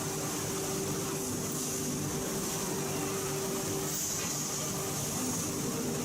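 Steady industrial machinery hum with hiss and a faint constant low tone, as of forging-plant equipment running.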